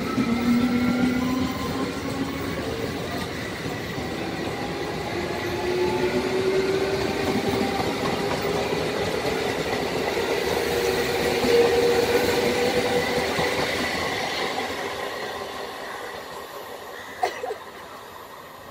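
ICF MEDHA electric multiple unit pulling away, its traction motors whining and rising in pitch as it gathers speed over the rumble and clatter of the wheels on the rails. The sound fades as the train recedes, with a short sharp knock near the end.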